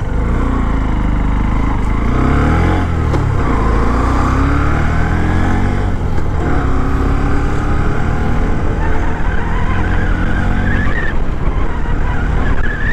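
Honda CB125F's single-cylinder engine pulling up through the gears, its pitch climbing, dropping at an upshift about three seconds in and again around six seconds, then rising slowly, over steady wind rush.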